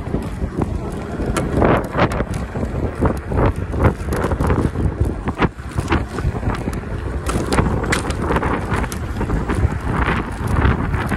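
Wind buffeting the microphone on a moving stand-up electric scooter, with a low rumble from the ride and frequent short knocks and rattles as it goes over the footpath.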